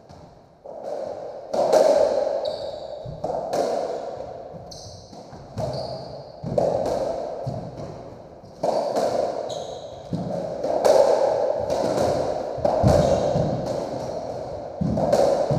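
Racketball rally in a squash court: the ball is struck by the rackets and smacks off the walls and floor about once a second, each hit ringing in the hard-walled court. Short high squeaks of court shoes on the wooden floor come between some of the hits.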